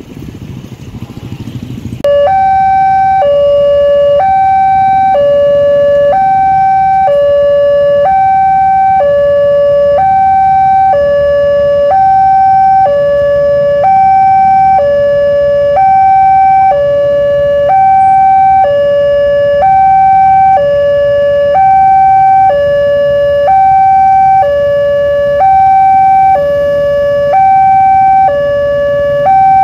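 Railway level-crossing warning siren switching on about two seconds in: a loud alarm alternating between a higher and a lower tone, each held about a second, sounding the crossing's warning that a train is approaching.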